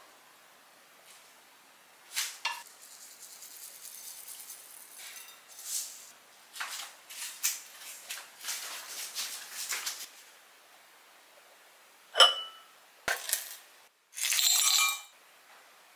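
Dishes and kitchen utensils being handled: several seconds of scraping and rustling, then two sharp clinks near the end, the first ringing briefly, followed by a short rush of noise.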